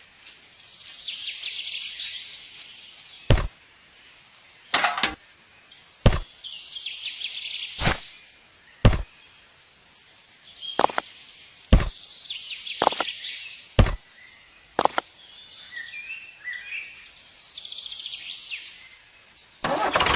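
A series of sharp knocks or chops, about nine, spaced irregularly roughly a second or two apart, with faint birds chirping in the background.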